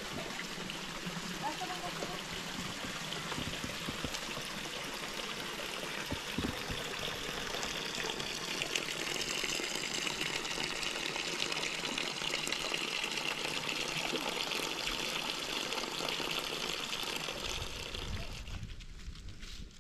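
Water running steadily, growing somewhat louder through the middle. Near the end it fades and a low rumble of wind on the microphone comes in.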